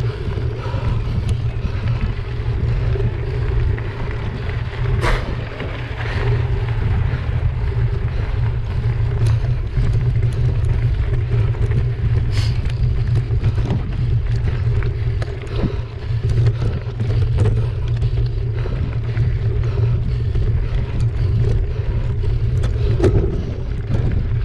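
Mountain bike riding fast over a gravel track: a heavy, steady rumble of wind on the microphone over tyre noise, with scattered clicks and rattles from stones and the bike.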